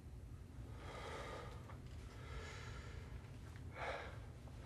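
A man breathing heavily in a tense pause: soft breaths in and out, with a sharper breath just before four seconds in, over a low steady hum.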